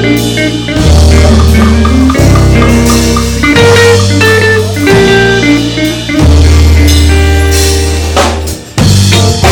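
Reggae band playing an instrumental passage during a sound check: drum kit, guitar and long held bass notes. The music dips briefly near the end, then comes straight back in.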